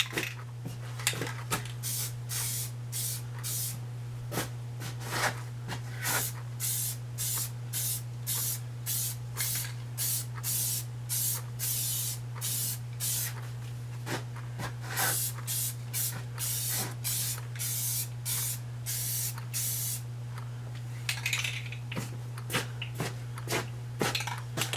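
Aerosol spray paint can spraying in many short bursts, about one or two hisses a second, stopping near the end, over a steady low hum.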